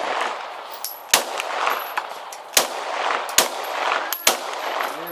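Four single shots from a Glock 17 9mm pistol, fired at uneven intervals about a second apart, each trailing off in a long echo.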